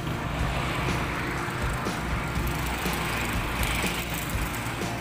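Road traffic noise: motor vehicles running along the street beside the walker, with a swell of engine and tyre noise about three and a half seconds in.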